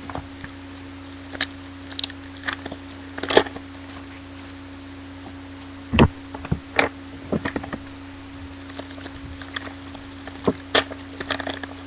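Packs of trading cards and the cards themselves being handled: scattered short crinkles, snaps and taps, with two louder thumps about three and six seconds in, over a steady low hum.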